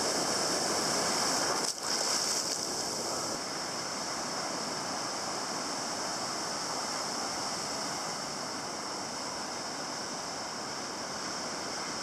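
Ocean surf breaking and washing up the beach: a steady rushing noise, a little louder for the first few seconds, with a brief dropout about two seconds in.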